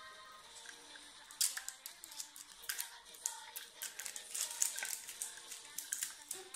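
Fingers and fingernails picking at and peeling the tight plastic seal off a Miao Blocks plastic toy capsule: irregular crinkling, tearing and clicking, starting about a second and a half in.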